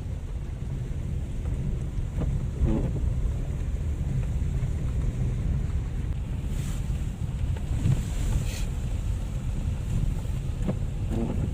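A car driving along a rough forest road, heard from inside the cabin: a steady low rumble with a few knocks from bumps.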